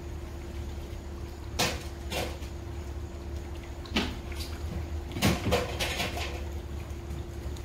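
A few sharp knocks and clacks, spaced a second or two apart with a quick pair near the middle, over a steady low machine hum.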